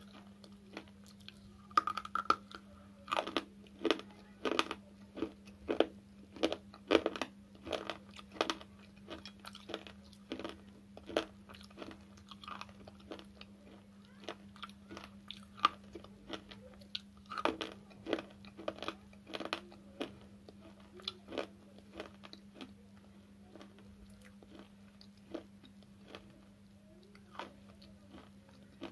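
Slate pencil chips being bitten and chewed close to the microphone: a rapid run of sharp crunches for the first ten seconds or so, another burst a little past the middle, then sparser, softer chewing, over a steady low hum.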